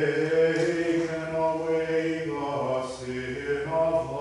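A man's solo voice chanting liturgical text on held notes, stepping from one pitch to the next every second or so.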